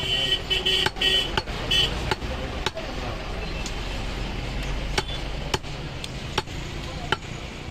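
A heavy butcher's cleaver chopping goat meat and bone on a wooden chopping block, in sharp irregular chops about one or two a second, with a pause in the middle. Traffic rumbles underneath, and a vehicle horn sounds in the first two seconds.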